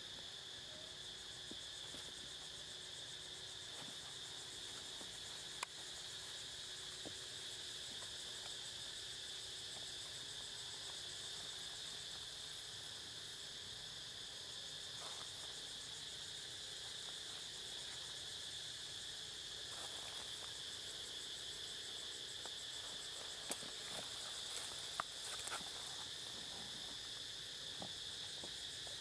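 Steady shrill chorus of insects, an unbroken high drone that does not change. A few short sharp clicks stand out, one about six seconds in and several near the end.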